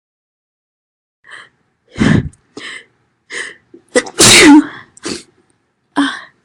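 A woman sneezing loudly several times in quick succession. The two biggest sneezes come about two seconds apart, with shorter, softer bursts between and after them.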